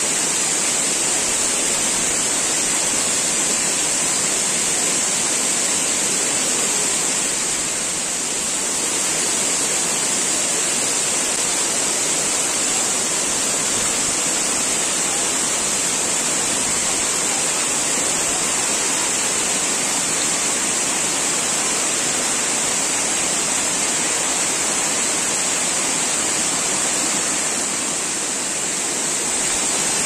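Waterfall tumbling down rock in several tiers, a steady rush of falling water that dips slightly twice.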